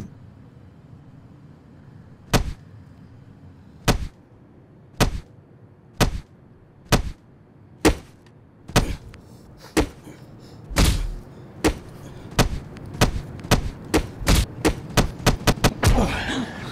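A run of hard, sharp hits, at first about one a second with quiet between, then coming faster and faster into a rapid flurry near the end: punches landing in a beating. One heavier, longer blow comes about two-thirds of the way through.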